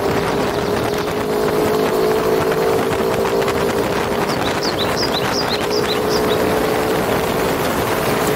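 Motorcycle engine running at a steady speed on the move, with wind rushing over the microphone. A run of short high chirps comes a little past halfway.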